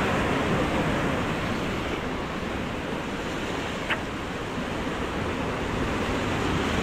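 Sea surf washing steadily, with wind buffeting the microphone; a single short click about four seconds in.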